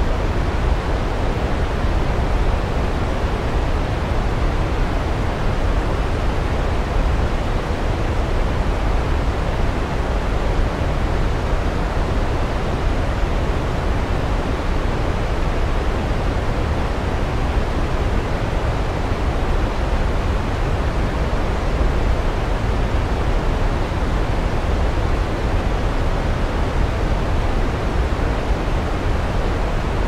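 Waterfall: falling water rushing steadily, with no change in level.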